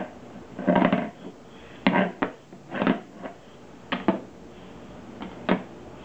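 Metal spoon scraped and tapped on the textured inner panel of an open dishwasher door: a handful of short rasping scrapes and sharp clicks about a second apart, thinning out near the end.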